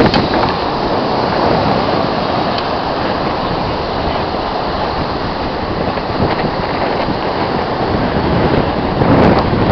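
Ocean surf washing in under wind buffeting the microphone: a steady rush of noise that swells again near the end.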